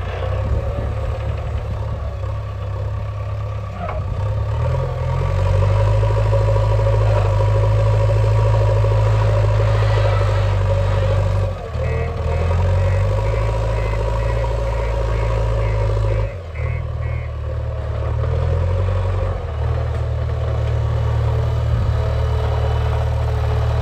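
JCB 3DX backhoe loader's diesel engine running under working load, its note stepping up about five seconds in and dipping briefly twice as the hydraulics are worked. A run of short high beeps comes about halfway through.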